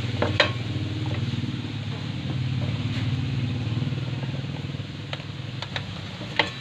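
An engine running steadily, a low hum under everything, with a few light clicks and knocks as whole tilapia are set down in a nonstick pan.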